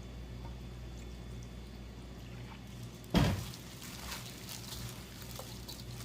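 A sudden loud thump about three seconds in, followed by scattered light clicks and crackles, over a steady low hum.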